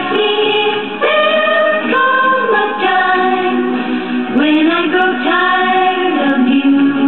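A vinyl LP playing through a small tabletop classroom record player's built-in speaker, now fitted with a Pfanstiehl P226 cartridge: a song with sung vocals and backing voices. The sound is thin, with no deep bass and no high treble.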